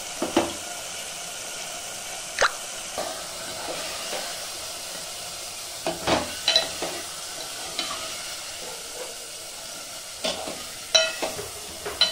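Ridge gourd and lentils sizzling in hot oil in an aluminium pot, with a ladle stirring and knocking against the pot's sides in a series of sharp clinks, the loudest about six and eleven seconds in.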